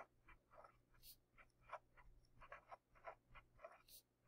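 Pen writing on paper, heard faintly as a run of short, irregular strokes, a few a second.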